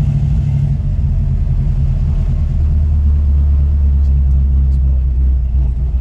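Engine and exhaust of a 1969 Dodge Super Bee heard from inside the cabin while driving slowly, a steady deep rumble. Its note drops lower and gets slightly stronger about two and a half seconds in.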